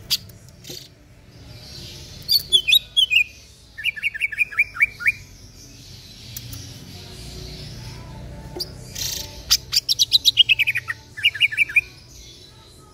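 Caged green leafbird (cucak ijo) in full song, giving loud rapid phrases of sharp whistled notes. Twice, a quick falling run of notes is followed by a burst of fast repeated chirps.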